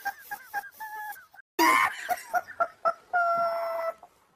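Comic sound-effect sting between sketches: a quick run of short, squeaky pitched notes about five a second, broken by a brief noisy burst, then one held note that cuts off shortly before the end.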